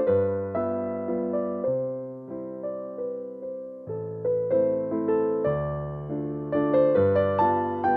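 Background music played on piano, single notes struck a few times a second and left to fade.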